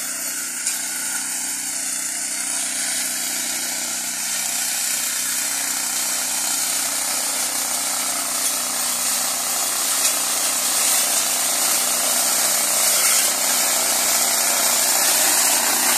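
Small petrol engine of a walk-behind bush-clearing machine running steadily while its 60 cm cutting bar cuts through undergrowth, growing gradually louder as the machine comes closer.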